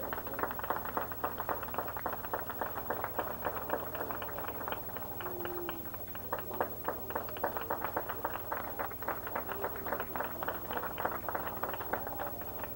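Audience applauding: many hands clapping in a dense, steady patter, with faint voices underneath.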